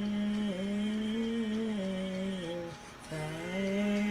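A single voice singing a slow worship song, holding long notes on the closing words "my King", with a brief break about three seconds in before the next line begins.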